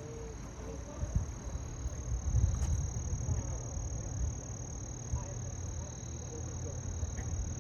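Wind gusting on the microphone as an uneven low rumble, strongest a couple of seconds in, over a steady high chirring of crickets.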